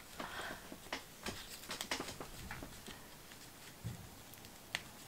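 Faint rustling and crinkling of gift packaging as a small ribbon-tied box is handled and untied, with scattered light clicks and one sharper tick near the end.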